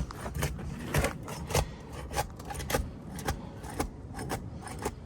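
Asphalt roof shingles being pried loose by hand: sharp scraping clicks about twice a second as the sealed shingles are worked up from the roof.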